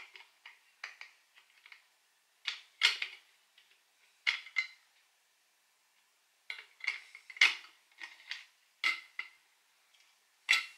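Glazed ceramic piggy bank being handled, its shell and lid clinking and scraping in short clusters of sharp clicks with a brief ring, separated by quiet gaps of a second or two.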